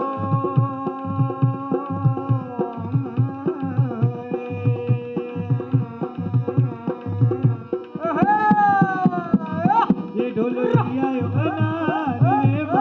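Live folk music: a hand drum plays a steady rhythm under long held notes, and about eight seconds in a high voice joins with sliding, wavering notes.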